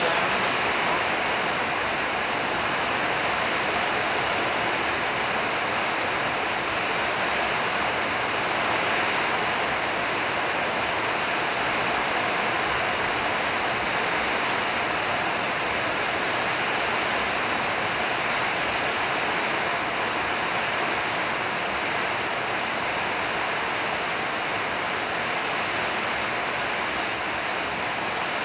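A steady, even rushing noise that holds at one level throughout and covers everything else.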